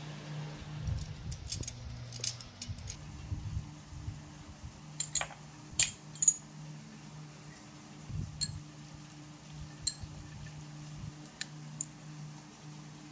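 Scattered sharp clinks of small glass bowls and chopsticks knocking against a bowl, several with a short ringing tail, the loudest pair about six seconds in. Under them runs a steady low hum.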